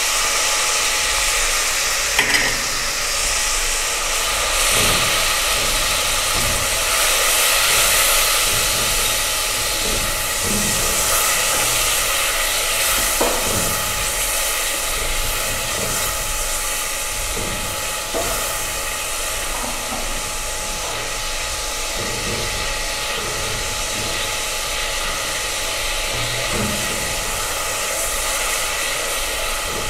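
Tomatoes and ginger-garlic paste sizzling in hot oil with fried onions in a metal pot, stirred with a spatula: a steady frying hiss with a few sharp taps and scrapes of the spatula against the pot.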